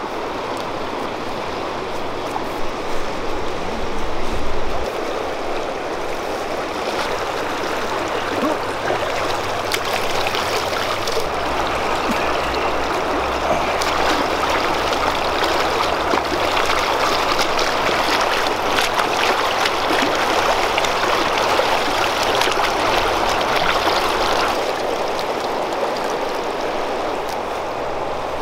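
Fast-flowing river rushing steadily, with splashing from hands working in the shallows. The rushing grows louder about a third of the way in and eases again near the end.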